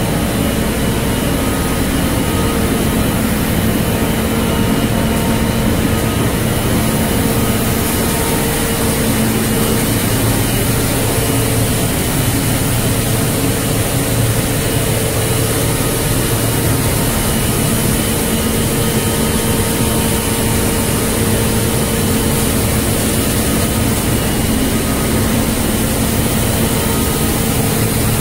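Polypropylene meltblown fabric production line running: a steady machinery drone with a constant hum and a high hiss.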